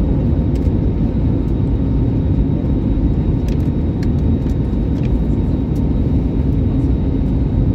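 Airliner cabin noise on the approach to landing: a steady, even low roar of engines and airflow with a constant low hum.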